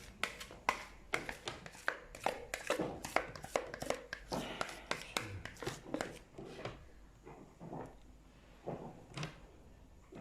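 A utensil scraping and tapping against a small bowl as cocoa cake batter is spooned out onto the batter in the pan: quick clicks several times a second that thin out after about seven seconds.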